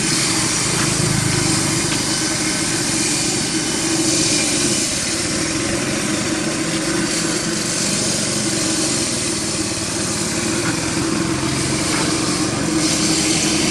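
A small engine running steadily, with a constant hum.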